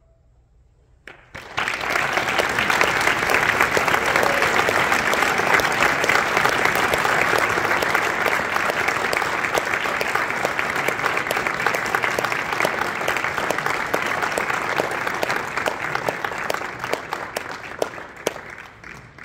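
Audience applauding, breaking out suddenly about a second in after a silence, then thinning to scattered claps and fading near the end.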